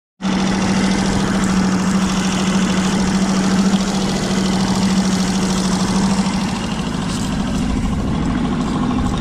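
Small outboard motor pushing a boat at slow trolling speed, a steady hum; its pitch rises a little about seven seconds in.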